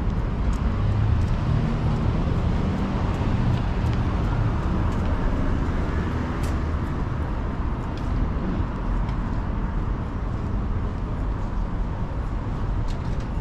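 Downtown street traffic: a steady low rumble of passing cars and engines, with faint scattered ticks through it.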